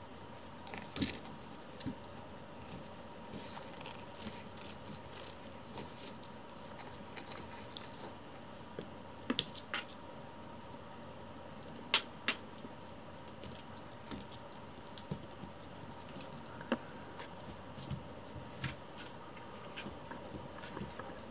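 Kittens playing on a vinyl floor: scattered small clicks, taps and scratches from their claws and paws, with the sharpest tap about twelve seconds in.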